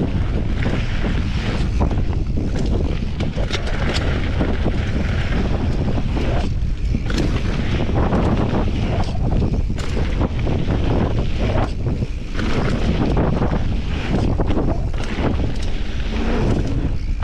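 Wind buffeting the microphone over the crunch of mountain-bike tyres rolling fast on loose gravel, with frequent sharp clicks and rattles as stones hit and the bike jolts.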